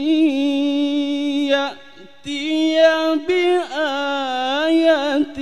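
A man reciting the Quran in the melodic tilawah style, singing 'an yaʾtiya bi-āyatin' in long held notes with ornamented turns. There is a short breath pause about two seconds in.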